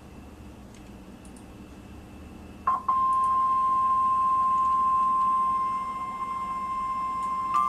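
Quiet radio hiss, then about two and a half seconds in a short burst and the NOAA Weather Radio 1050 Hz warning alarm tone: one steady high beep held to the end. It is the signal that a warning, here a tornado warning, is about to be broadcast.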